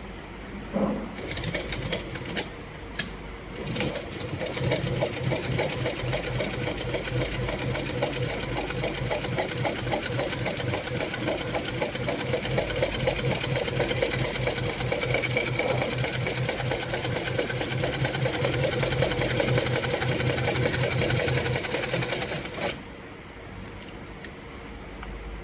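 HighTex 204-102 double-needle moccasin sewing machine running, with a few sharp clicks before it starts. It then stitches at a fast, steady rate for about eighteen seconds and stops suddenly near the end.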